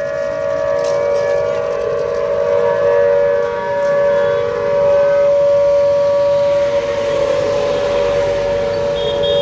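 Civil-defence air-raid siren sounding a loud, steady held tone with overtones as a public alert warning.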